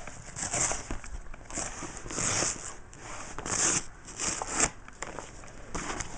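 Packaging crinkling and rustling in irregular bursts as accessories are pulled out of a box.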